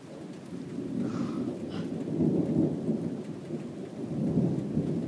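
Rolling thunder from a nearby lightning strike, a low rumble that builds about a second in and keeps rolling, with rain falling.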